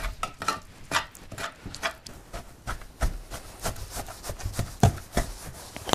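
Wet paste of boiled trout pellets being mixed and worked in a container: irregular soft clicks and knocks, with one louder knock about five seconds in.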